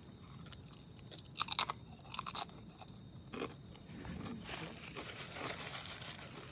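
Crunching of a Flamin' Hot Limon Doritos tortilla chip being bitten and chewed, with two loud bursts of crunching about a second and a half in and around two and a half seconds, then a softer one. From about four and a half seconds a steady papery rustle follows as a napkin is rubbed over the mouth.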